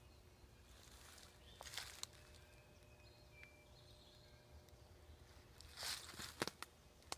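Quiet woodland ambience: a few soft rustles of footsteps in dry leaf litter, about two seconds in and again near the end, with faint high bird chirps between them.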